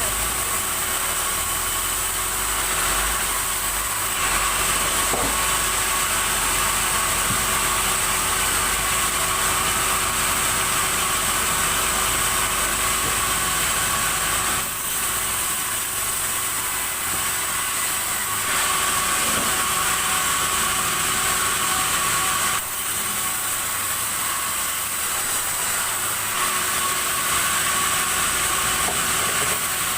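Sawmill saw machinery running steadily with a continuous loud mechanical noise, dipping slightly about fifteen seconds in and again a few seconds later.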